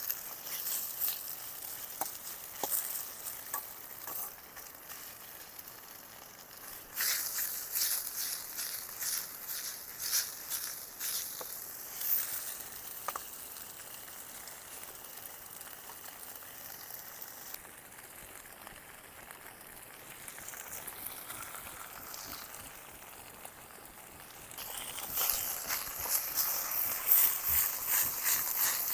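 Food sizzling and crackling as it fries in a pan, changing abruptly several times and loudest near the end.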